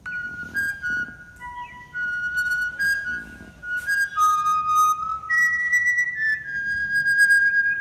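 A tune whistled by a boy: clear single notes held for a moment each, stepping up and down between pitches with a few short slides. There are a few hand claps along with it.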